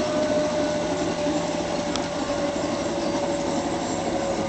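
G-gauge model train running on its garden track, its motor and gears giving a steady whine over rolling-wheel noise.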